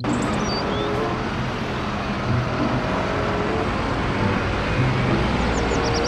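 Single-deck city bus engine running as the bus drives along and turns, over steady road traffic noise. A few bird chirps near the start and the end.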